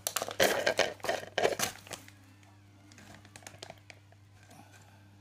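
Several short rustling handling noises in the first two seconds, then a few faint clicks over a low steady electrical hum.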